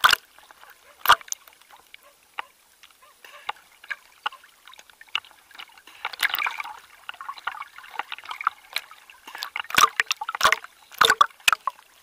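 Small sea waves slosh and lap against a camera held at the waterline, with sharp splashes near the start and several more in the last few seconds, and a longer wash of water about halfway through.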